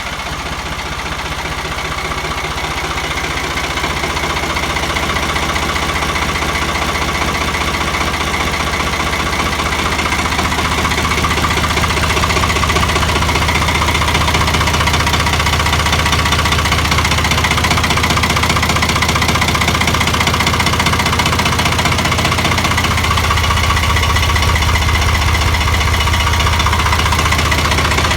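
Ford 4610 tractor engine idling steadily while it warms up on a cold morning; it grows a little louder over the first several seconds.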